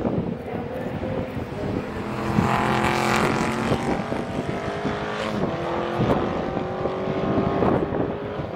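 Race cars going round the circuit: several engines heard at once at high revs, their pitch stepping down at gearshifts, with one car swelling louder as it passes about three seconds in.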